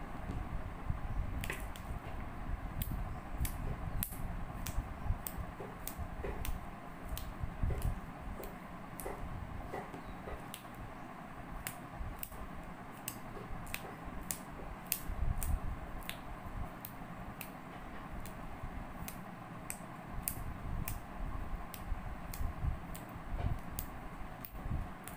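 Sharp, irregular clicks and taps from kitchen utensils, one or two a second, over a steady low hum.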